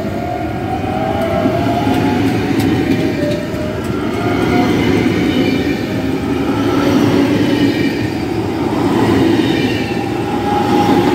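Trenord double-deck electric multiple unit passing close by: a steady rumble of wheels on rail with an electric whine that shifts in pitch, and a few sharp clicks about two to three seconds in.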